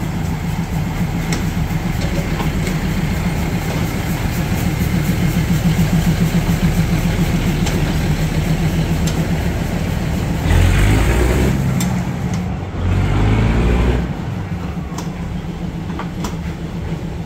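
Engine on a test run, idling steadily, blipped up twice in quick succession about ten and thirteen seconds in before settling back to idle.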